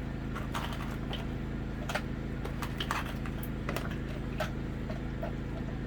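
Scattered light clicks and clinks, irregular, from clams being added to a simmering pot of cioppino broth, over a steady low hum.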